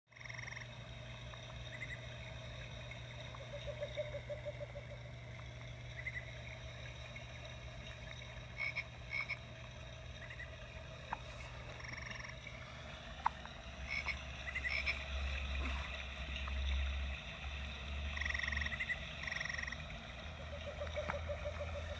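A baby hiccuping repeatedly: short croaky hics at irregular intervals over a steady low hum.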